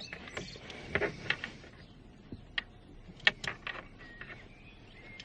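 Scattered light clicks and knocks of plastic parts and fittings being handled and pushed into place on a car's steering column.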